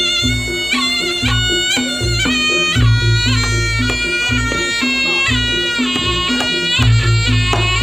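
Reog Ponorogo accompaniment music for the Bujang Ganong dance: a slompret (shawm) plays a bending, ornamented melody over a steady repeating chime pattern and deep, heavy bass hits from the drums and gong.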